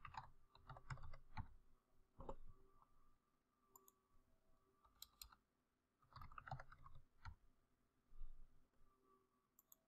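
Faint computer keyboard typing and mouse clicks in short bursts of keystrokes with pauses between.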